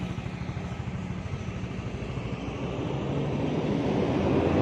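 A vehicle's engine running while driving, getting louder over the second half.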